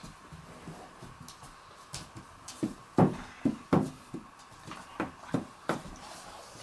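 Dogs scuffling in play, bumping about on a wooden floor: a string of irregular thumps and knocks, mostly in the second half.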